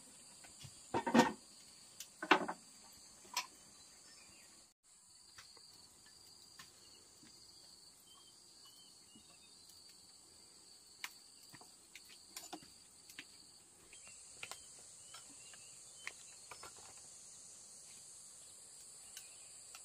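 Insects chirring in a steady, high-pitched drone. Two loud clanks of a utensil against a cooking pot come in the first few seconds, and light clinks of a ladle and spoon against a bowl follow later.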